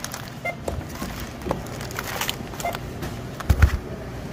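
Supermarket checkout: a barcode scanner beeps briefly twice, about two seconds apart, as items are passed over it. Packages clatter and knock throughout, and there is a heavy low thump about three and a half seconds in.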